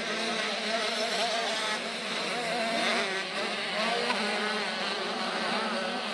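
Several motocross bikes racing, their small high-revving engines buzzing and rising and falling in pitch as the riders work the throttles.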